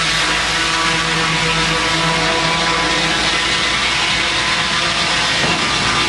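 Circular sawmill running, its blade cutting lengthwise through a log as the carriage feeds it, with the mill's power unit running steadily.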